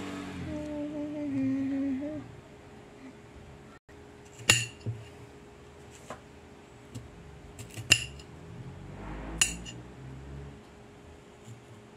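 Kitchen knife slicing bitter gourd on a plate, the blade clicking sharply against the plate three times, with fainter taps in between. A low hum dies away about two seconds in.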